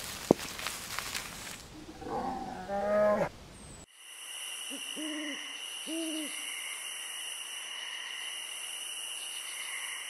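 An owl hooting twice, about a second apart, over a steady high chirring of night insects. Before it, a few sharp clicks and a short wavering pitched sound, the loudest moment, stop abruptly about four seconds in.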